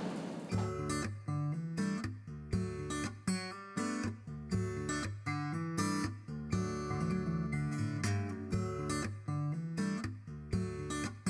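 Background music: strummed acoustic guitar chords in a steady rhythm, starting about half a second in.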